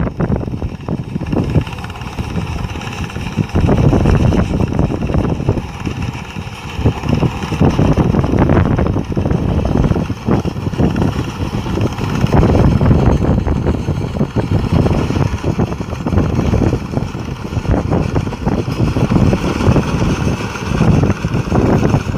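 Engine of a rice harvesting machine running steadily under load, with gusts of wind buffeting the microphone.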